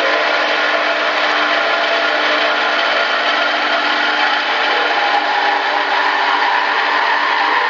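MEP Shark 652 SXI EVO band saw cutting through a steel H-beam with a Bahco 3853 blade: a steady hiss from the blade in the steel, with several held tones from the running machine.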